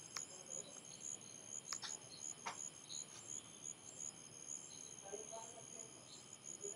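Faint cricket chirping steadily in the background, a high pulse about four times a second. A few sharp clicks fall in the first few seconds.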